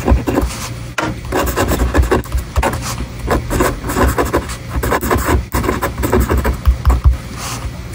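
Monami Plus Pen fibre-tip pen writing on paper: irregular scratchy strokes, one after another, as words are written out.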